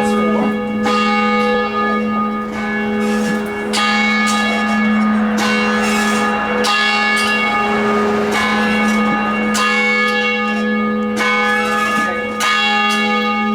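Church tower bell rung repeatedly, with a strike roughly every second or so. Each strike brings out a bright ring of overtones, over a deep hum note that rings on the whole time.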